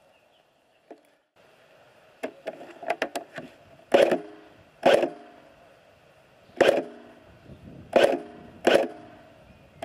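Airsoft rifle firing single shots: five loud, sharp shots spaced about a second apart, each followed by a brief pitched mechanical ringing. Before them comes a quick cluster of quieter snaps.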